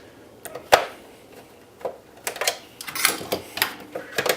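Printer casing being handled and worked at with a screwdriver: one sharp knock about three quarters of a second in, then a run of small clicks and rattles.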